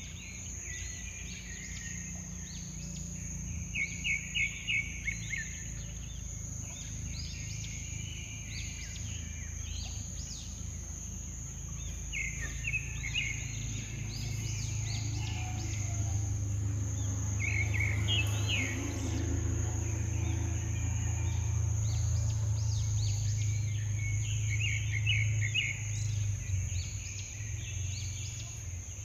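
Outdoor ambience: birds chirping in short quick series several times, over a steady high-pitched whine and a low rumble that swells through the second half.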